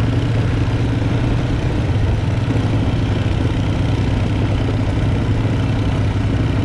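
Honda FourTrax Recon ATV's single-cylinder four-stroke engine running steadily at low speed while the quad rolls over gravel.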